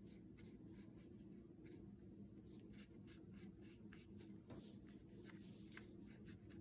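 Faint, irregular scratchy swishes of a small watercolour brush stroking paint onto paper, over a low steady hum.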